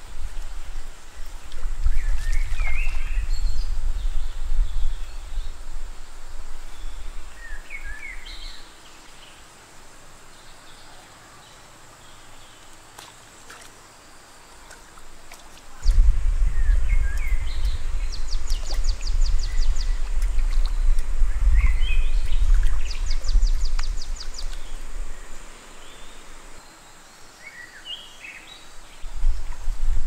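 Forest ambience: scattered bird calls and chirps over a steady high insect drone, with two rapid chattering trills in the second half. A low rumble comes and goes and is the loudest sound, strong for the first eight seconds or so and again from about halfway to near the end.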